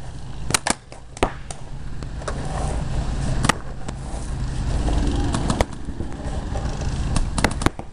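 Paintball markers firing: single sharp pops at irregular intervals, with several in quick succession near the end, over a steady low rumble.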